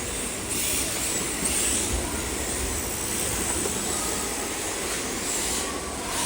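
Electric RC drift cars sliding around the track: their hard tyres hiss on the surface in swells as cars pass, with a faint thin whine from the electric motors.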